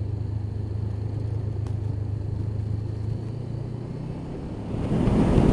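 Honda CB500X parallel-twin engine running steadily at road speed, heard from the rider's helmet camera. Just before the end, a louder rush of wind noise sets in over it.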